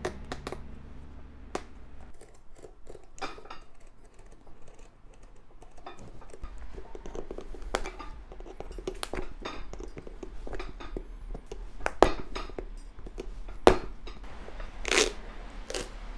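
Hand tools working at the sole edge of a leather boot: a blade and pick prying and cutting, giving irregular scrapes, clicks and knocks. Two sharp clicks come a little after midway, and a longer scrape comes near the end.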